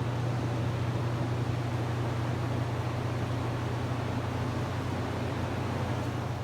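A steady low mechanical drone, as of an engine or motor running, with an even hiss over it.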